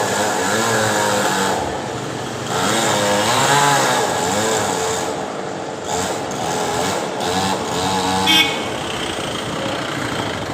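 Chainsaw engine running hard, its pitch rising and falling again and again as it is revved.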